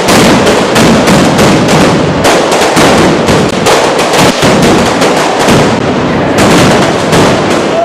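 Dense barrage of firecrackers going off at street level in rapid succession, many sharp bangs a second with hardly a break.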